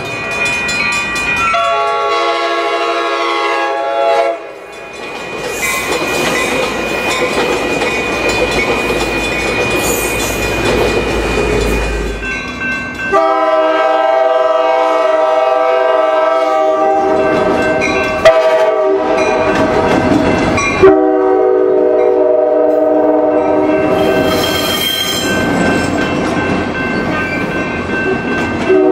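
San Diego Coaster commuter train's locomotive air horn sounding a series of blasts, each a chord of several held tones: mostly long blasts with a short one among them. Between the first blast and the rest comes a stretch of steady rumbling train noise.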